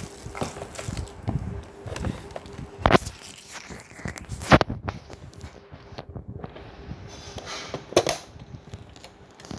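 Hard plastic toy case being handled and opened: a series of sharp plastic clicks and knocks, the loudest about three seconds in, about four and a half seconds in and near the end.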